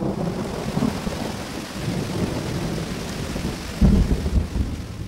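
Thunderstorm: steady rain hiss with thunder rumbling, and a louder, deeper roll of thunder about four seconds in.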